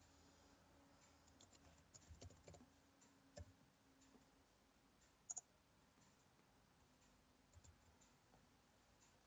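Faint, scattered clicks of a computer keyboard and mouse over near-silent room tone, with a sharper double click a little past five seconds in.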